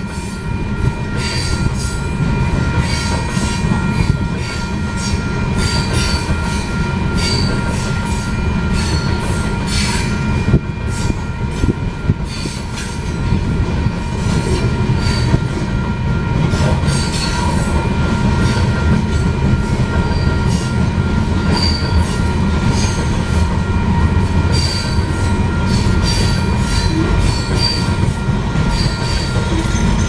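Loaded coal train's gondola cars rolling past, with a steady low rumble of steel wheels on rail, repeated clicks and short high wheel squeals every second or two.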